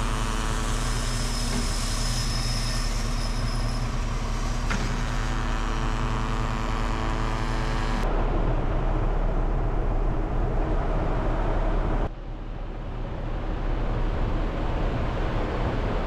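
Engine and machinery hum at a grain elevator: a steady drone of several even tones with a faint high whine, giving way about eight seconds in to an even rushing noise, then dropping suddenly and building back to a steady noise near the end.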